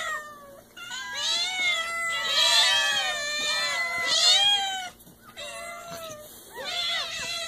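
A dozen or so domestic cats meowing all at once, many calls overlapping and gliding up and down in pitch, with short lulls about half a second in and again around five seconds.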